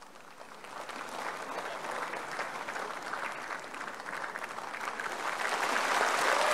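Applause from a large assembly in a big hall, starting faint and swelling steadily louder.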